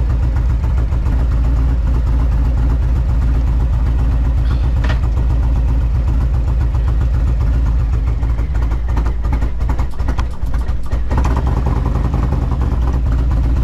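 Harley-Davidson Milwaukee-Eight V-twin engine idling, loud and steady, with the note turning uneven for a couple of seconds about nine to eleven seconds in.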